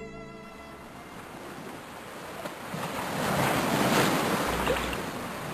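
Ocean waves washing, with some wind, swelling up about three seconds in.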